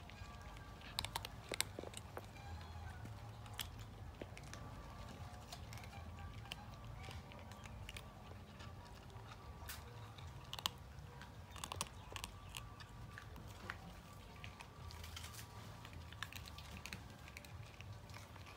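A cat crunching dry kibble close up: irregular sharp crunches and clicks as it bites and chews the pellets.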